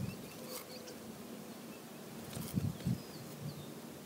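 Rural outdoor ambience: a steady low background hiss with a few faint bird chirps, and a couple of dull low thumps about two and a half to three seconds in.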